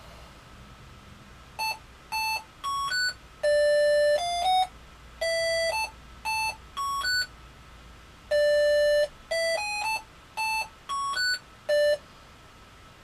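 Arduino Mega playing an RTTTL ringtone as a tune of buzzy electronic beeps at changing pitches, mostly short notes with a few held longer. The tune starts about a second and a half in, its opening phrase comes round again a little past halfway, and it stops about a second before the end.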